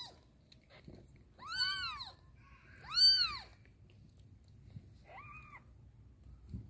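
Newborn kitten mewing three times, high-pitched cries that rise and then fall in pitch; the second is the loudest and the last is shorter and fainter.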